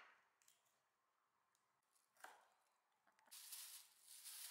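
Near silence, with one faint knock about two seconds in and a soft, hissy rustle in the last second or so.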